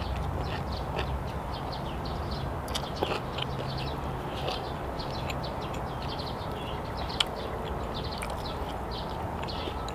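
Close-up eating sounds of a person chewing and biting into grilled chicken, with many small wet ticks and smacks, and two sharp clicks about three and seven seconds in.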